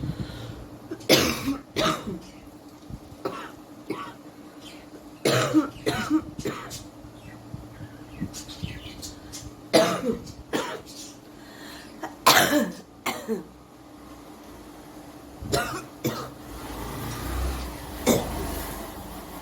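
A woman coughing in short fits of one to three harsh coughs every few seconds, about a dozen in all. It is a real cough from an illness; she describes it as heavy and says green phlegm is coming up.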